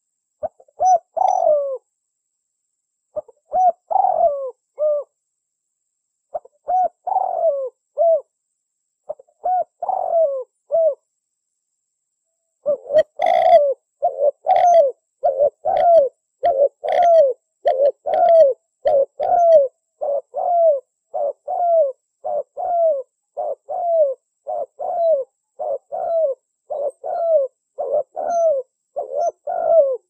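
Spotted doves cooing. Short phrases of falling coo notes come with pauses in the first half, then from about halfway an unbroken run of coos at about three notes every two seconds.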